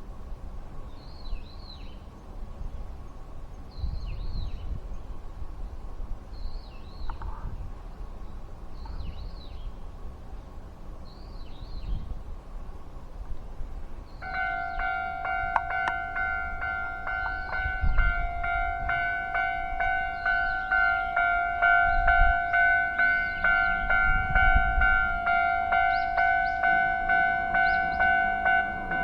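A Japanese level-crossing warning bell starts about halfway through and keeps ringing in a fast, even, repeating clang. Before it, a bird calls briefly about every two seconds over a low rumble.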